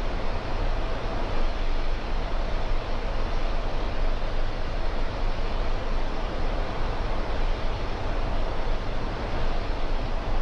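Steady flight-deck noise of a Boeing 747-400 in descent: an even rushing sound over a deep, constant rumble.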